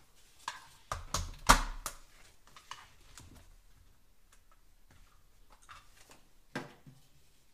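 Hands handling the parts and power cable of a small aquarium's lamp on a countertop: a few sharp plastic clicks and knocks, the loudest about a second and a half in and another near the end.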